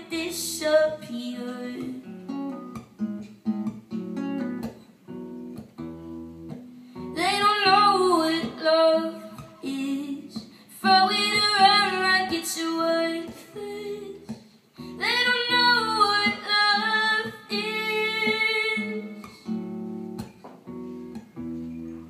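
A song with a female voice singing over guitar. The guitar plays throughout, and the voice comes in for three long held phrases, with guitar alone between them and near the end.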